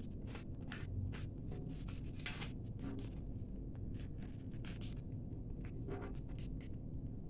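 A sheet of A4 paper being folded and creased by hand: scattered short rustles and scrapes of paper.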